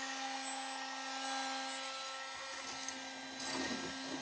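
Small USB-powered R2-D2 desktop vacuum's motor running with a steady, noisy whine. Some handling noise from the toy being moved joins it in the second half.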